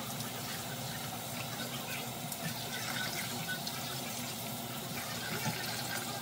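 Kitchen faucet running steadily into a plastic bowl in a stainless steel sink, with small splashes as raw fish are rinsed by hand.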